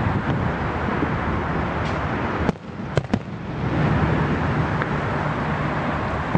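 Fireworks going off: three sharp cracks close together about two and a half to three seconds in, over a steady noisy rumble.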